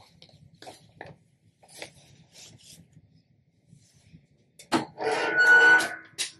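Light rustling of a Teflon sheet being laid over a heat-transfer job, then a clamshell heat press being pulled shut by its handle: a loud creaking squeal, about a second and a half long, near the end.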